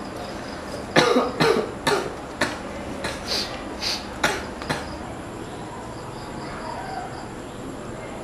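A person coughing in a run of short, sharp coughs, about two a second for some four seconds.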